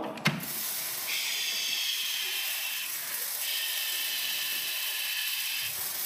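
Dry groats pouring from a tipping toy trailer and pattering through a metal grate into a container: a steady, hissing rush of small grains.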